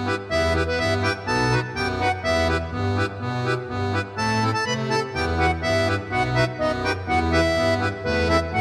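Folk dance tune led by accordion, sustained melody notes over a bass that steps in a steady beat.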